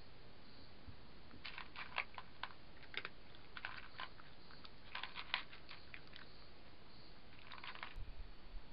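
A cat crunching dry food from a dish: irregular bursts of sharp crunching, several bites at a time, with short pauses between.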